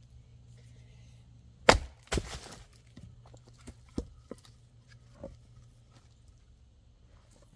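Firewood being split: a sharp, loud crack about two seconds in, a second hit followed by a short clatter of wood, then a few lighter knocks.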